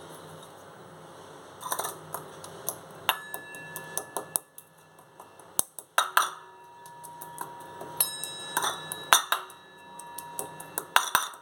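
Camphor, cloves, black peppercorns and ajwain being pounded by hand: irregular knocks, several in quick clusters, each followed by a short metallic ring.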